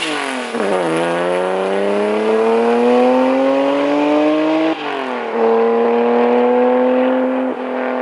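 Honda NSX V6 with an aftermarket Taitec exhaust under hard acceleration. The revs climb steadily for about four seconds, drop sharply at an upshift about halfway through, then hold high as the car pulls on in the next gear.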